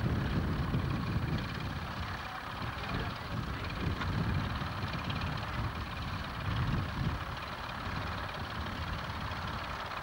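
Tractor engine running close by as the tractor works a plough along the furrow, a low rumble that swells and eases a few times.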